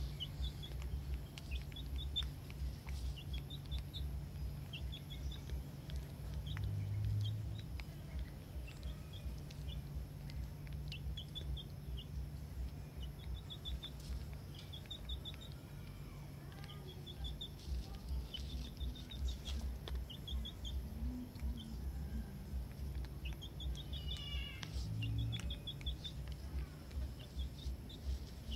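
Small birds chirping in short, quick runs of three to five high notes, repeated every second or two, over a low rumble.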